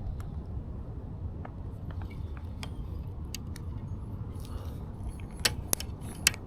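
Steady low rumble with scattered small clicks and ticks, then three louder sharp clicks in the last second or so.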